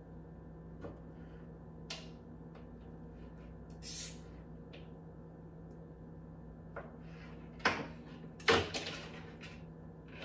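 A few scattered kitchen knocks and clunks, the loudest two coming close together about three quarters of the way through, over a steady low hum.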